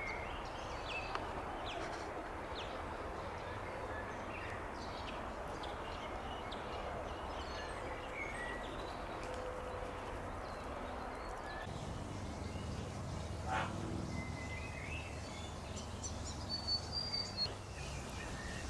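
Outdoor ambience: a steady background hiss with short bird chirps and tweets here and there. About twelve seconds in, a low rumble joins it.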